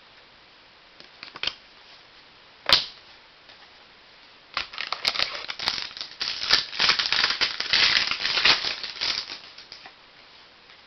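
A couple of sharp clicks, then about five seconds of dense crinkling and rustling as trading cards and their foil pack wrapper are handled.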